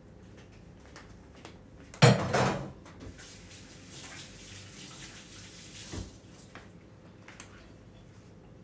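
A loud clatter about two seconds in, then a kitchen tap running for about three seconds and stopping with a knock.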